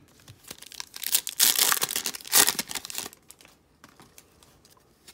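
Trading-card pack wrapper being torn open and crinkled, a loud crackling and tearing for about two seconds starting about a second in, followed by faint handling ticks as the cards are taken out.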